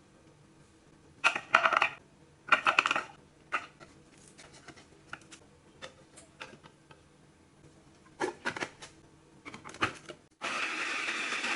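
A few short bursts of clicking and clattering, as of things handled and dropped into a container. About ten seconds in, an electric blender switches on abruptly and runs steadily, grinding the chilli, shallot and garlic spice paste.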